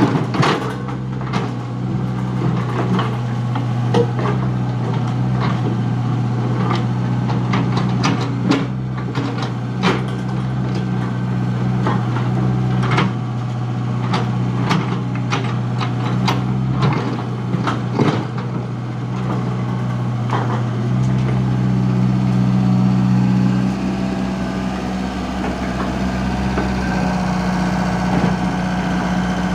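Komatsu PC75 mini excavator's diesel engine running steadily, with frequent short knocks and clanks from the work. The engine note changes about 21 seconds in.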